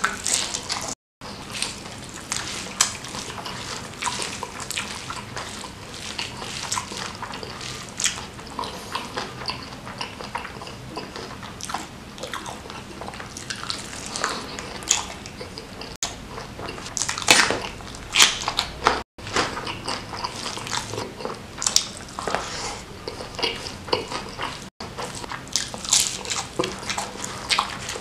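Close-miked chewing and biting of a person eating spicy Indonesian stir-fries with rice, full of irregular short wet clicks and smacks. The sound drops briefly to silence a few times.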